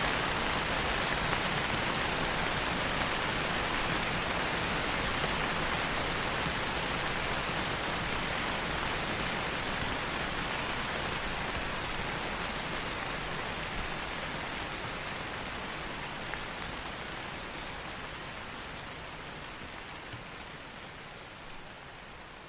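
Steady rain falling as a dense, even hiss of drops, slowly fading quieter through the second half.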